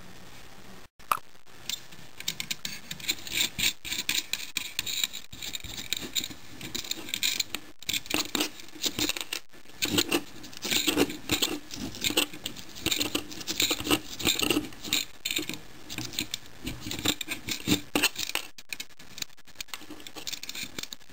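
Small metal parts clinking and scraping in irregular taps: brass nuts and washers being worked off the water heater element's threaded terminal studs and set down, with a socket wrench.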